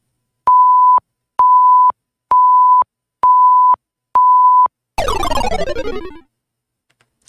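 Countdown timer sound effect: five steady, high beeps of one pitch, about a second apart, counting down five seconds. A louder many-toned sound sweeping down in pitch follows about five seconds in.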